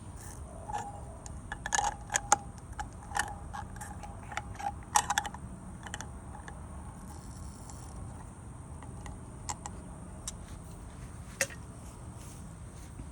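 Clicks and taps of small hard parts being handled. They come in quick clusters over the first five seconds, then a few scattered ones, over a steady low rumble.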